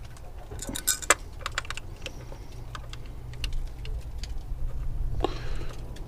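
Light metallic clicks and clinks of small bolts being handled and started by hand into a new ignition coil pack, thickest in the first two seconds, over a low steady rumble.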